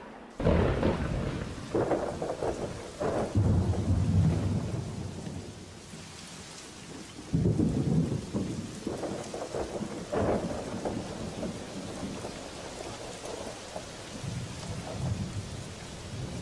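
Thunderstorm: a sudden thunderclap about half a second in, then repeated rolls of thunder over steady rain falling on foliage.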